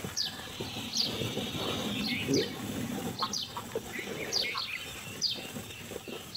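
Birds chirping: short, quick downward-sweeping chirps, several in every second, over the low rustling and crunching of cattle eating dry chopped straw.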